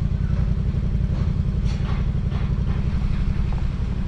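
Yamaha MT-series motorcycle engine idling with a steady low rumble of rapid even pulses.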